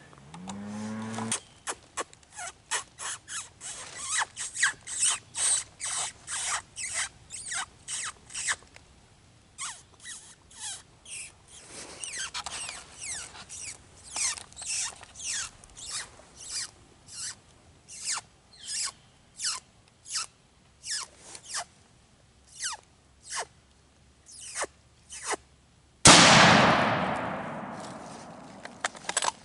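Predator call squealing in quick, falling-pitch squeals, about two a second, to draw in a coyote. About 26 seconds in, a single loud gunshot rings out and echoes away over a few seconds.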